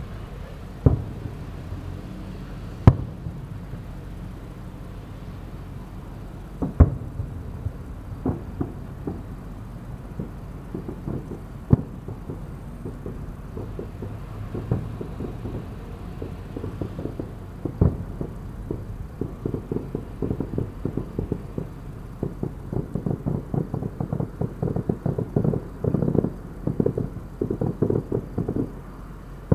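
Fireworks exploding: single sharp bangs a few seconds apart, then from about two-thirds of the way through a fast, dense run of pops and bangs.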